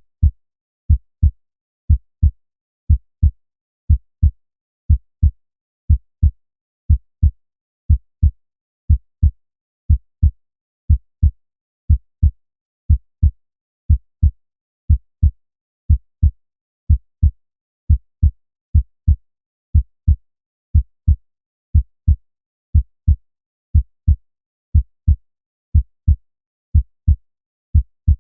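Normal human heart sounds: a steady lub-dub at about one beat a second, each beat a pair of short, low thuds. The first sound (S1) is the mitral and tricuspid valves closing and the second (S2) is the aortic and pulmonary valves closing, with no murmur between them.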